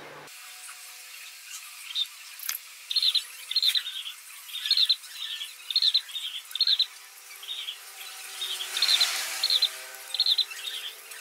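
A broad steel knife blade scraping and shaving a node on a bamboo rod: short, rasping strokes, about two a second, starting about two seconds in.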